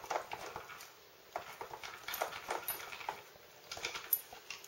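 A dog working at a Nina Ottosson Dog Casino plastic treat puzzle with its nose, making scattered, irregular light plastic clicks and knocks from the pegs and drawers.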